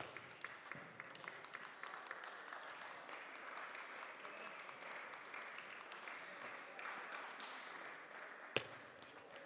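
Spectators applauding in a sports hall after a table tennis point, a patter of claps that runs on as a steady hiss. About eight and a half seconds in comes a single sharp crack of a ping-pong ball struck on a serve.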